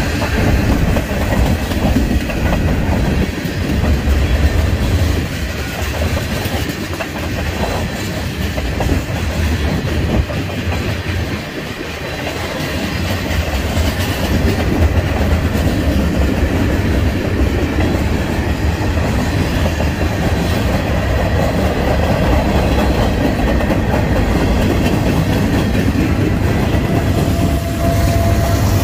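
Long freight train of hopper and tank cars rolling past close by: a steady rumble with the rapid clickety-clack of wheels over the rail joints. Near the end a mid-train Union Pacific locomotive comes by and a steady tone joins the rumble.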